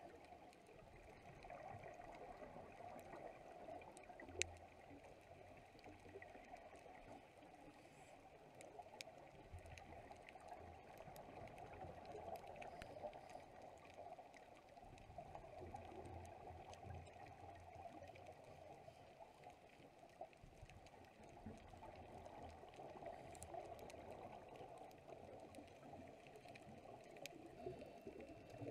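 Faint, muffled underwater ambience: a steady hiss of water with a low rumble and a few small clicks, one sharper about four seconds in.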